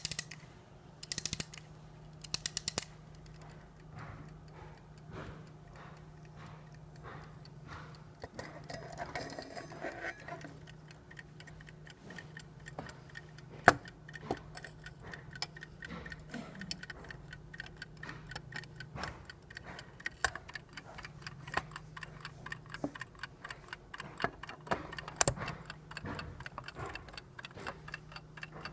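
Frog clock ticking steadily, its movement running. A few louder clicks come in the first three seconds and a single sharp knock about halfway through, over a steady low hum.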